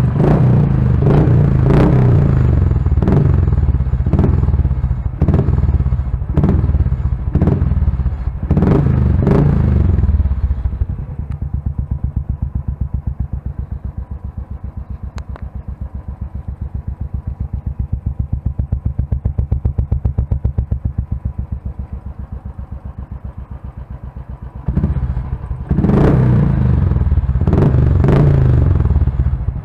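Royal Enfield Thunderbird 350's single-cylinder engine through an aftermarket Wild Boar silencer. For the first ten seconds or so it is revved in short throttle blips. It then idles with an even thump, and the blipping starts again near the end.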